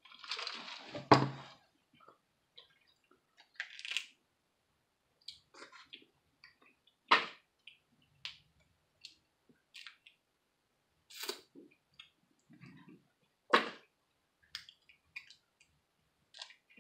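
Boiled crawfish shells cracked and pulled apart by hand, heard as scattered sharp cracks and snaps, a few of them louder, after a noisy slurping suck in the first second or so.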